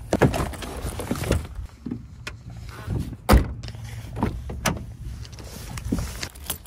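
A car's outside door handle pulled and the door unlatching and swinging open, with a run of clicks and knocks and a sharp thump a little over three seconds in, over rustle from the phone being handled.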